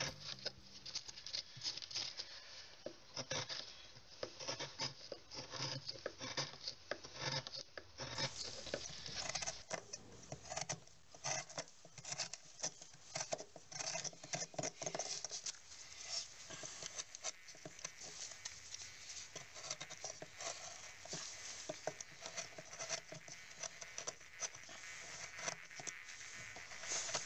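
Hand carving tool cutting into soft ayous wood: a rapid, irregular run of small scraping and chip-snapping clicks as the blade takes off shavings.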